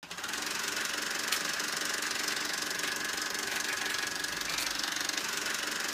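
A steady mechanical drone with a high steady whine over it, starting suddenly, with two faint clicks.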